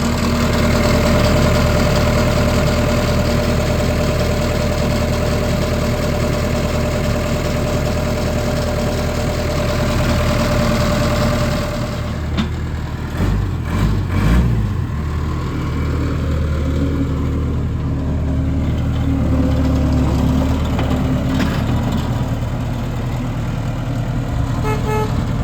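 Case 1845C skid steer's Cummins diesel engine idling steadily, now running on a freshly changed and primed fuel filter. About halfway through, its low note briefly wavers, then settles again.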